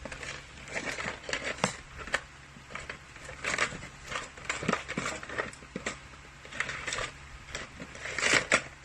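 Small sewing tools and accessories being handled and sorted through by hand: irregular light clicks, taps and brief rustles as she looks for a tool to thread the needle.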